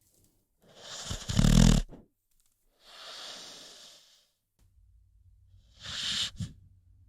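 American Pit Bull Terrier snoring in its sleep: a loud rattling snore about a second in, then a softer breathy exhale, then a shorter snore near the end.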